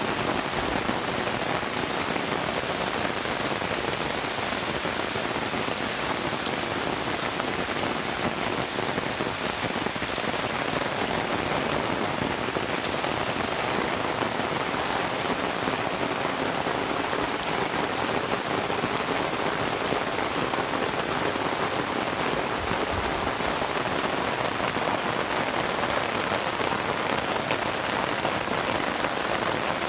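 Heavy rain falling steadily in a downpour, an even hiss that holds at the same level throughout.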